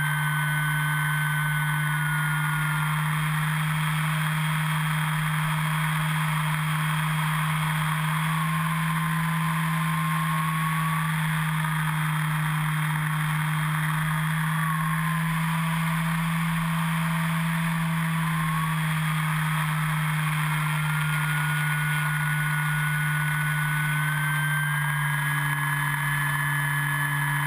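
Brushless electric motor and propeller of an E-flite Carbon-Z Yak 54 RC plane in flight, heard from a camera on the airframe: a steady low drone under a motor whine that sinks in pitch twice as the throttle eases and climbs again near the end, over a rushing noise.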